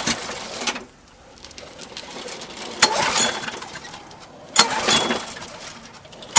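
Briggs & Stratton lawn mower engine being pull-started by its recoil starter. The engine turns over in three surges, one fading about a second in and sharp pulls about 3 and 4.5 seconds in, but never catches and runs.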